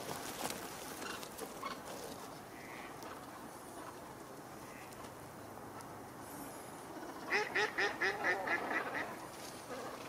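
A large flock of ducks and swans calling on the river in a steady background murmur; about seven seconds in, one bird gives a loud, quick series of about ten calls lasting under two seconds.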